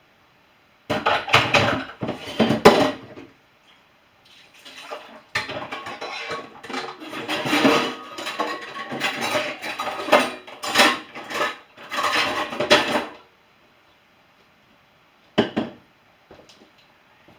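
Dishes and cutlery clattering as they are loaded into a dishwasher's racks, in two long bouts of clinks and knocks with a short pause between, and one brief clatter near the end.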